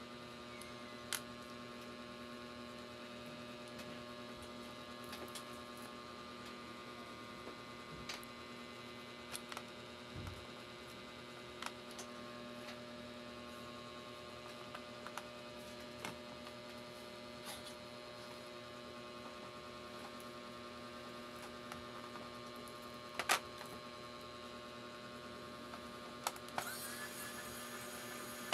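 Steady electrical mains hum, with scattered small clicks and taps; the loudest click comes about 23 seconds in.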